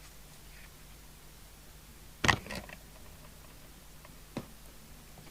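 Items being handled on a workbench: one sharp knock about two seconds in and a lighter click about two seconds later, over a faint steady mains hum.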